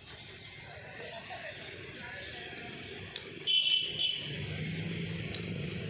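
Passenger train rolling away down the track, a steady distant rumble that grows a little from about four seconds in. A brief high-pitched squeal comes about three and a half seconds in.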